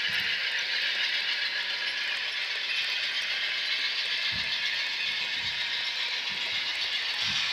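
N scale model Amtrak Superliner passenger cars rolling along the track: a steady high whirr of small wheels on the rails, with a couple of faint low knocks.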